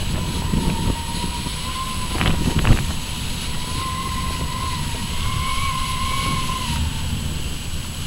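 Wind buffeting the microphone in a steady low rumble, with a thin, slightly wavering whistle running through most of it and a couple of sharp knocks between two and three seconds in.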